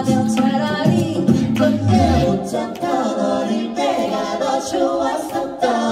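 A five-voice mixed a cappella group, men and women, singing in harmony through microphones, with a low bass voice under the melody.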